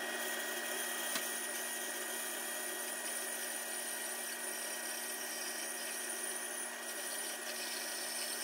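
Rikon 3061 benchtop bandsaw running steadily while resawing a cedar block into a thick veneer: an even motor and blade hum with a faint high whine.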